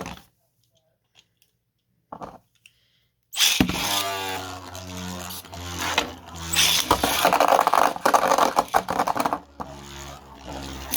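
Beyblade tops launched from a ripcord launcher about three seconds in, then spinning and clashing in the stadium with a whirring hum and a rapid rattle of hits in the middle; the launch hangs up on the launcher a little.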